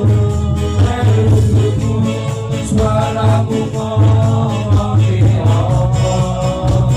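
A man singing a song over backing music with a strong bass and a steady beat.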